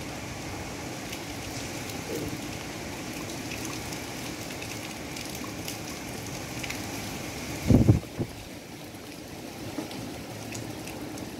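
Strong tropical-cyclone wind blowing steadily through palm trees as a continuous rushing hiss. About eight seconds in, a hard gust gives a short, loud low buffet, with a smaller one just after.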